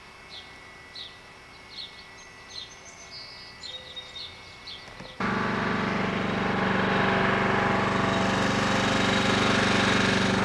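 Birds chirping a few short calls over a quiet yard. About five seconds in, a John Deere riding lawn tractor's engine starts up abruptly, loud and steady, as it mows.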